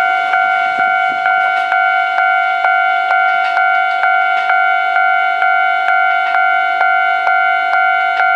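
Japanese electronic level-crossing warning bell ringing, a clanging electronic tone repeated evenly a little over twice a second.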